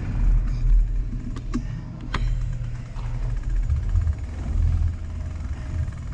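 Bicycle rolling over a concrete floor: a steady low rumble from the tyres and the handlebar mount, with a few light clicks and rattles.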